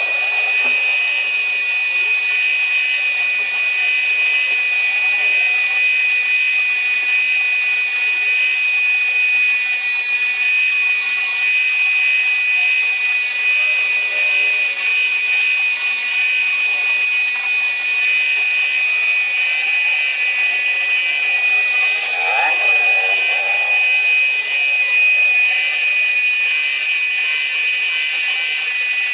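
CNC router spindle running steadily with a high-pitched whine while its bit cuts into wood, the loudness hardly changing.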